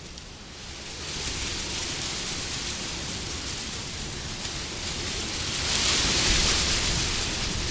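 Wind blowing as a steady rushing noise. It dips briefly at the start, then swells into a louder gust about six seconds in.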